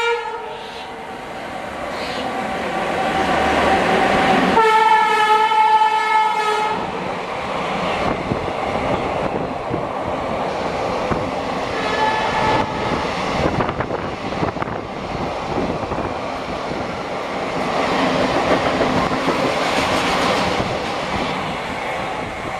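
WAP-7 electric locomotive sounding its horn as the train comes in, one loud two-second blast about five seconds in and a brief faint toot around twelve seconds. Then the coaches roll past with steady wheel noise and repeated clicks of the wheels over the rail joints.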